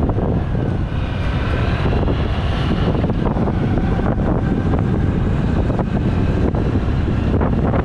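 Wind buffeting a helmet-mounted GoPro Hero 8's built-in microphone while riding a motorcycle, with the engine and road noise running underneath. About a second in, a higher whine with several tones comes through for a couple of seconds.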